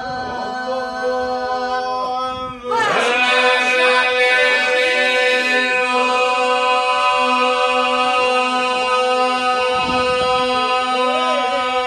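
An Albanian folk group singing iso-polyphony a cappella: the ensemble holds a steady drone under one or more lead voices. About three seconds in, the singing swells louder as more voices come in.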